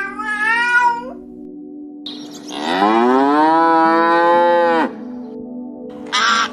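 Two animal calls: a short wavering cry in the first second, then a long call of about two seconds that rises in pitch and holds, over a steady low hum. A short scratchy noise comes near the end.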